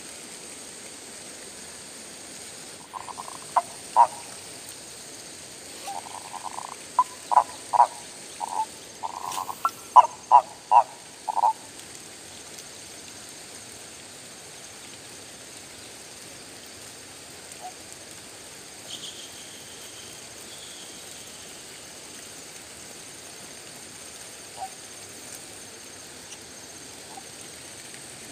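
Frogs croaking: a run of short calls, loudest and most frequent between about three and twelve seconds in, then only a few faint calls over a steady hiss.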